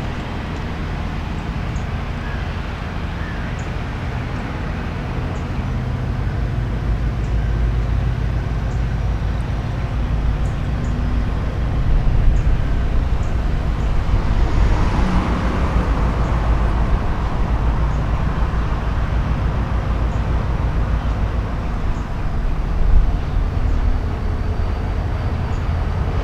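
Diesel locomotive engine running, a steady low rumble that gets somewhat louder about halfway through.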